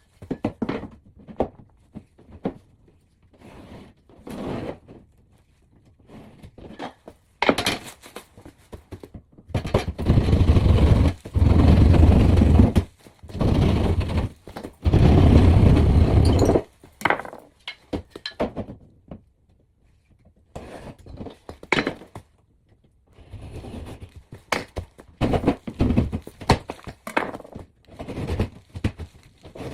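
Drywall repair work: a string of thunks, knocks and scrapes, with a louder rough, noisy stretch lasting several seconds around the middle.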